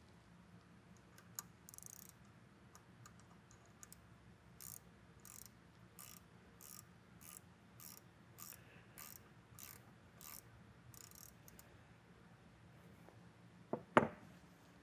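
A wrench tightening a grease fitting into the arm bearing assembly of a can seamer: about eleven short, evenly spaced metallic clicking strokes, roughly one and a half a second. A sharp double knock of metal near the end is the loudest sound.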